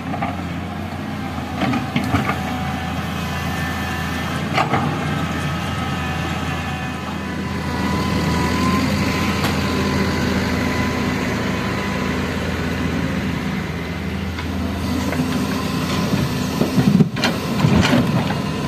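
Komatsu excavator's diesel engine running steadily, getting a little louder about eight seconds in, with a few sharp knocks along the way and a cluster of them near the end.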